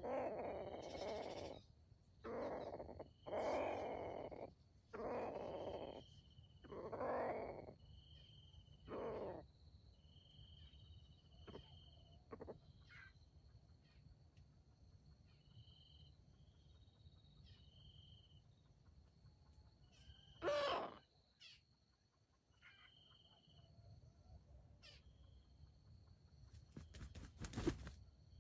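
Red junglefowl (wild chickens) calling: a run of six loud calls about a second apart over the first ten seconds, then a single call about twenty seconds in. A faint steady high whine and short high chirps run underneath, and a thump comes near the end.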